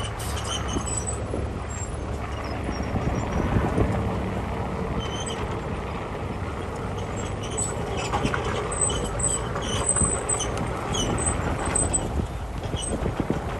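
Heavy diesel machinery running steadily, a low engine drone with scattered short high squeaks over it.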